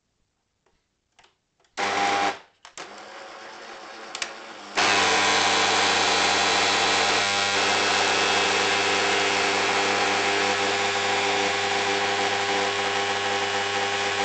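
AEG Cafamosa fully automatic coffee machine running with strange mechanical noises: a short burst, a few clicks and a quieter spell, then about ten seconds of steady loud running with a low hum that cuts off suddenly. The noise sounds like a slipping pinion, which the owner says it is not.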